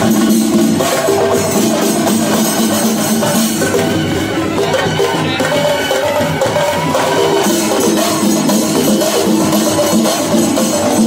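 Sinkari melam ensemble playing: chenda drumming with clashing cymbals, a shifting tune sounding above the beat.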